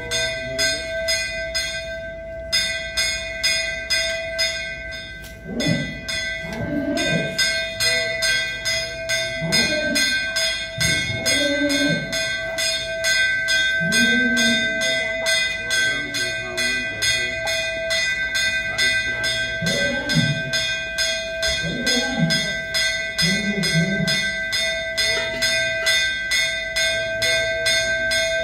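A bell rung continuously in fast, even strokes, its ringing tones held steady, during a puja. A man's voice is heard at intervals.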